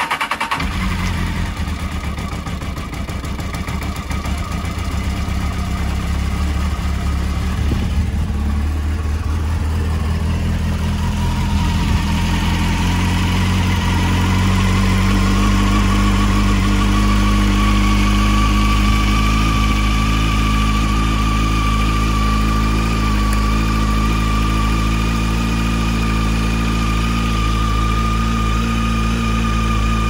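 Honda CBF600 inline-four motorcycle engine idling just after a cold start, run with the radiator cap off to circulate fresh coolant and bleed air from the cooling system. The idle note shifts and settles about halfway through.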